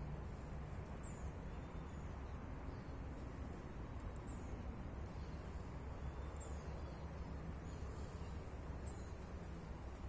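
Outdoor ambience: a steady low rumble, with faint, short, high-pitched chirps from small birds recurring about once a second.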